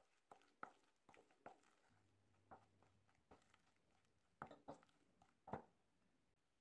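Plastic spatula working creamy mascarpone and powdered sugar in a bowl. It makes a faint series of about nine short scrapes and taps against the bowl, the strongest near the end.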